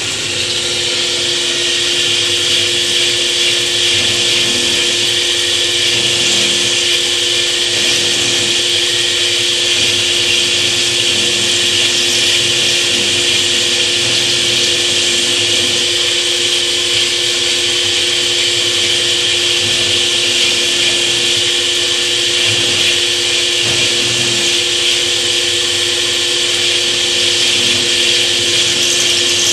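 Power tool running steadily with a wet 7 mm hollow diamond bit, plunging and circling to grind a recess for a screw head into natural stone. It gives a steady whine over a strong hiss.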